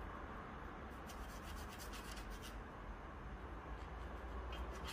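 Light rubbing and scratching strokes of a small stick spreading grease along a 3D printer's Z-axis lead screw: a quick run of strokes about a second in, then a few more near the end.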